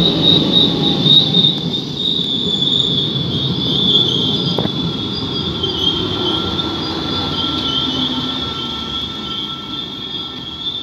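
NS Sprinter electric passenger train rolling past on the rails, a high steady squeal from its wheels over the low rumble of the wheels on the track. The rumble slowly fades toward the end.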